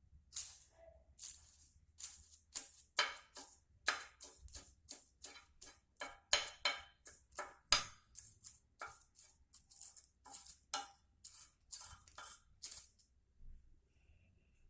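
Dry kala basa leaves crackling and rustling as they are heated and charred down to ash for a cough remedy: a run of crisp, dry strokes, about two to three a second, loudest in the middle and thinning out near the end.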